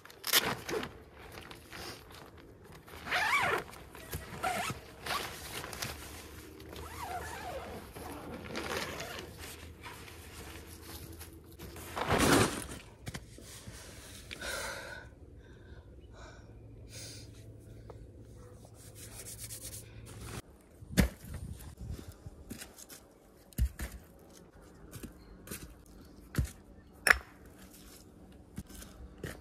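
Irregular scraping and rustling handling noises, one louder than the rest about twelve seconds in, then several sharp, separate knocks in the last third.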